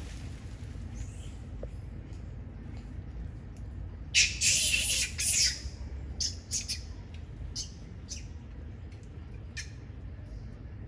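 Harsh, high-pitched animal squawks: one long call about four seconds in, then several short ones, over a steady low rumble.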